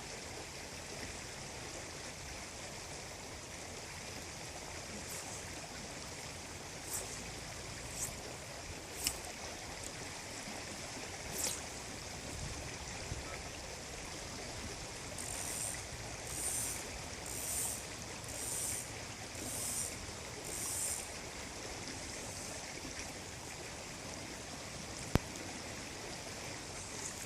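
River water flowing steadily over rocks, with a few sharp ticks and a run of about six short high-pitched rasps about a second apart near the middle.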